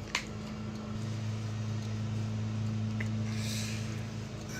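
A steady low hum, a little louder from about a second in, with a faint click near the start.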